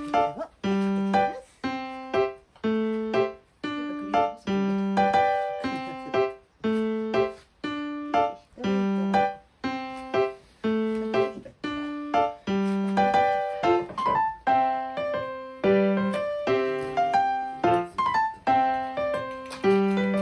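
Background music: a light tune of struck, quickly fading notes in a steady, repeating pattern.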